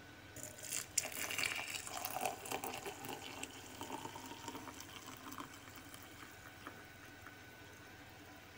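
Hot water poured from an electric kettle into a glass jar of chopped aspen bark: a thin stream splashing and filling the jar. It is faint and fades gradually through the second half.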